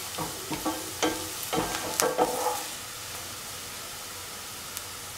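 Sliced onions frying in oil in a pan, stirred with a spatula for the first couple of seconds with scraping strokes against the pan, then sizzling steadily on their own. The onions are being sautéed to brown them.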